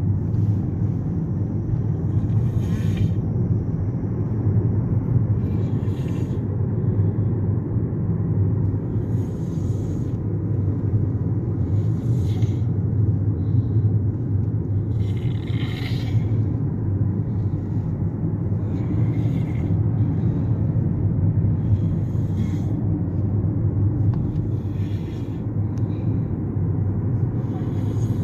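Steady low drone of a car driving up a mountain road, heard from inside the cabin, with a short hissy sound recurring about every three seconds.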